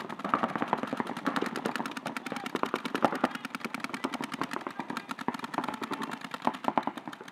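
Paintball markers firing rapid, continuous strings of shots, many sharp pops a second from more than one gun at once.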